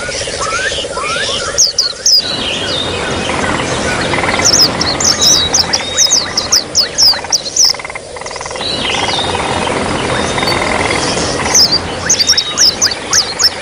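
Small songbirds singing runs of fast, high, downward-sweeping notes over a steady trickle of water. The runs come three times: about a second and a half in, in the middle, and near the end.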